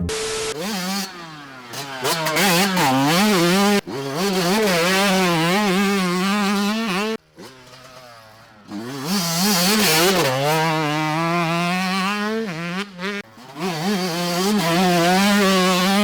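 Yamaha YZ125 two-stroke dirt bike with an FMF slip-on silencer being ridden hard, its engine revving up and falling back again and again through the gears. It drops off briefly about seven seconds in.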